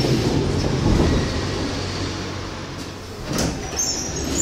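Ezh3 metro car at a station: its low running rumble fades as it comes to a standstill, then, about three seconds in, a sharp knock and a hiss of air as the pneumatic doors open.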